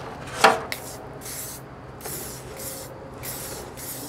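Aerosol rattle can of spray paint hissing in repeated short bursts, about two a second, with a loud sharp click about half a second in. The can's nozzle is used and not blown out, and is not spraying at its best.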